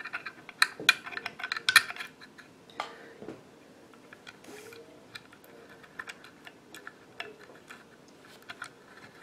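Small metal parts of a Marlin 39A lever-action rifle clicking and tapping as they are fitted back together by hand: a quick run of sharp clicks in the first two seconds, then scattered light ticks.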